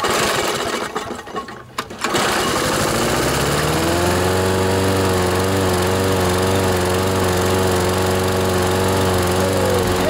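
Briggs & Stratton 7.25 hp lawnmower engine being started. It cranks unevenly for about two seconds, catches, rises in speed over the next two seconds, then settles into a steady run while burning off excess oil from being overfilled.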